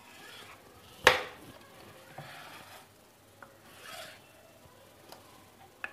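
Kitchen knife drawn through thin rolled dough against a wooden rolling board, several soft scraping strokes, with one sharp tap about a second in.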